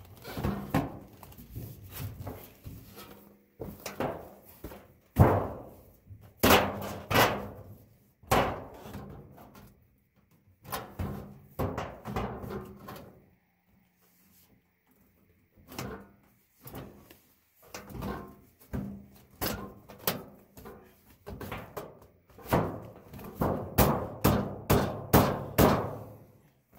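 Black steel stovepipe and its crimped adjustable elbow being worked together and against a sheet-metal wall shield: repeated metallic clanks and knocks with a short ring, in irregular clusters, with a pause about halfway through.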